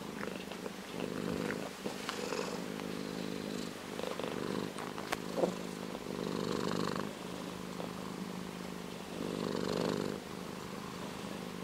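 Orange tabby cat purring steadily close up, the purr swelling louder every two to three seconds. A few small clicks come about halfway through.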